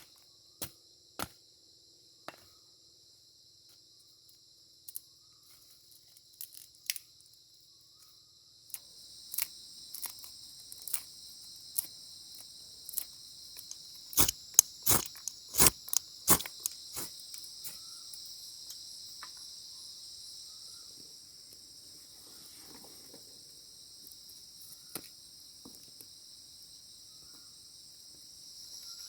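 Crickets chirring steadily, growing louder about a third of the way in. Sharp knocks or taps fall over the top at uneven intervals, with the loudest cluster of about five near the middle.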